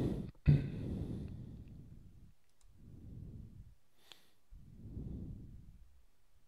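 Breath on a close microphone: a few slow exhalations as low rumbly swells, with a sharp knock about half a second in (the loudest moment) and a faint click about four seconds in.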